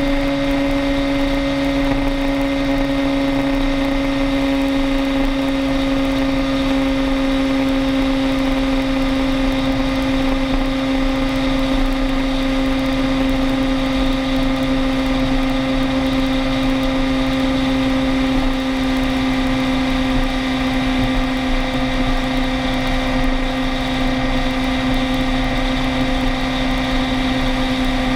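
Vehicle engine running steadily at highway cruising speed with a steady drone that sinks slightly in pitch near the end, over continuous road and wind noise.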